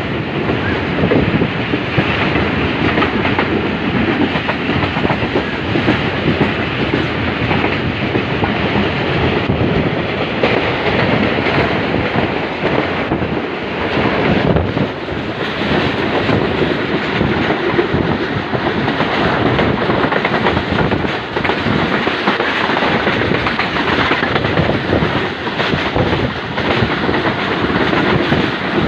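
Passenger express train running at speed on the track, heard from an open coach window: a continuous rumble with wheels clattering over the rails.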